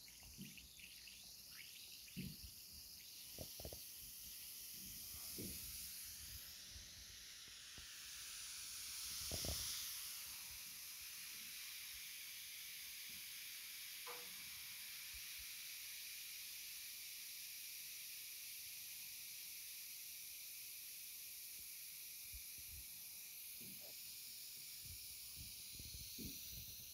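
Effervescent Optisana multivitamin tablet fizzing as it dissolves in a glass of water: a steady, faint high hiss that swells about ten seconds in, with a few soft knocks.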